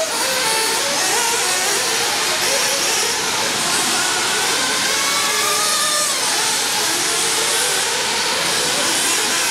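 Several radio-controlled off-road racing cars running around a dirt track, their motors rising and falling in pitch as they accelerate and slow, over a steady hiss.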